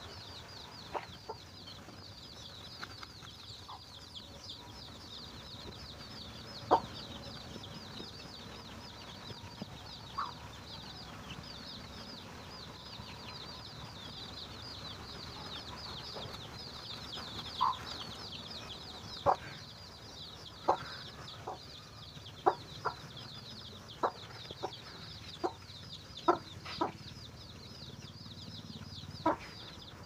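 Chicks peeping nonstop in a stream of high-pitched cheeps, while the mother hen gives short, sharp clucks as she scratches for food among them. The clucks are scattered at first and come in quicker succession in the second half.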